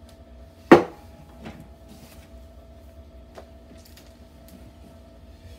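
A single sharp knock about a second in, followed by a few faint clicks, over a steady low hum.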